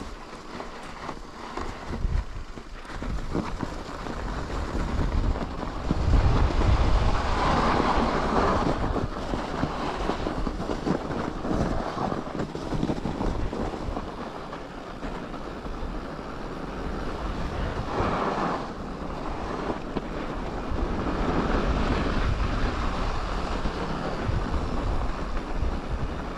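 Wind rushing over the microphone with the steady rolling noise of mountain bike tyres on snow and ice; the wind gusts loudest about six to eight seconds in.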